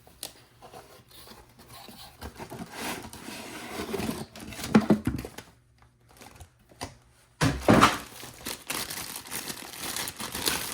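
Packaging of a car stereo head unit being opened and handled: crinkling and tearing of the wrapping, with louder knocks about 5 and 8 seconds in.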